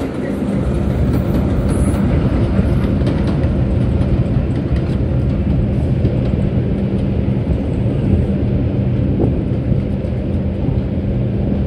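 Subway train running: a loud, even rumble under a low hum.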